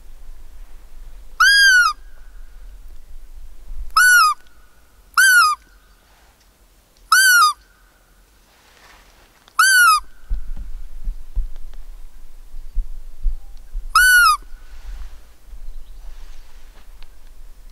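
Kosmaty roe deer call blown six times, short squeaks a few seconds apart, each rising then falling in pitch: an imitation of a roe doe's call, used to lure a buck during the rut. A few low bumps between the later calls.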